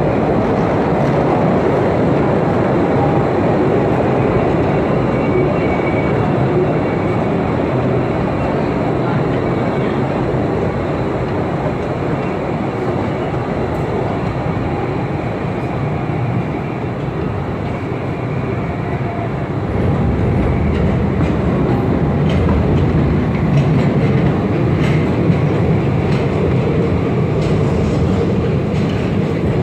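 Postojna Cave tourist train running through the cave: a steady noise of wheels on the rails, heavier and deeper from about two-thirds of the way in, with faint clicks near the end.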